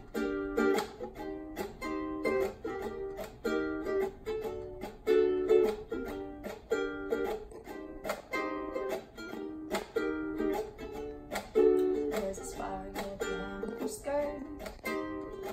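Acoustic ukulele strummed in a steady rhythm, cycling through a repeating chord pattern.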